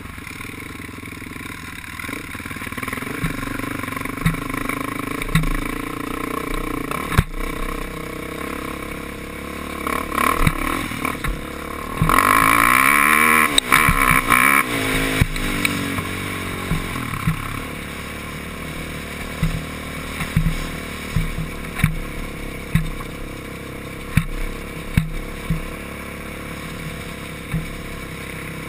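ATV engine running under way on a rough dirt trail, with knocks and rattles from the machine jolting over rocks and ruts. About twelve seconds in the engine revs up and back down and is loudest for a few seconds.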